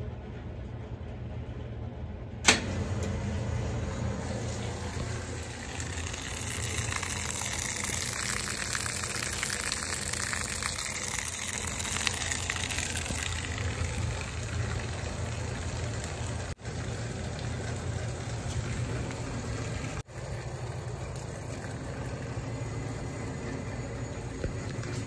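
1953 Westinghouse automatic front-loading washing machine running through its wash cycle: a steady low motor hum, a sharp click about two and a half seconds in, then water rushing into the tub, loudest in the middle and easing off.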